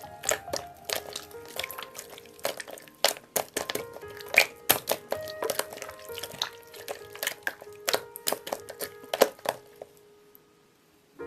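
Background music with a gentle tune, over sharp crisp crackling clicks from crunchy slime being squeezed. The clicks stop about nine seconds in and the sound fades almost to silence just before the end.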